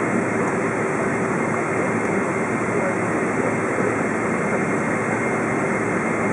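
Steady in-cabin noise of a Boeing 777-200's General Electric GE90 engines running at low taxi power, an even rush with a faint steady whine.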